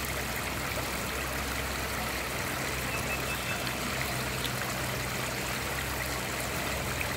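Steady trickle of running water at a fish pond, with a low steady hum underneath.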